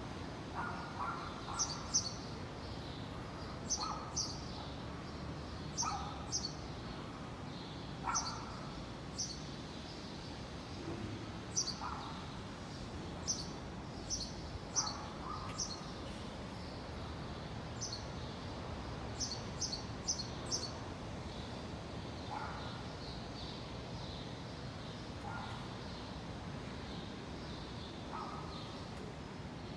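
Birds calling: short sharp high chirps, often in pairs, every second or two, with lower calls in between, over a steady background noise. The high chirps stop about two-thirds of the way through, and the lower calls carry on.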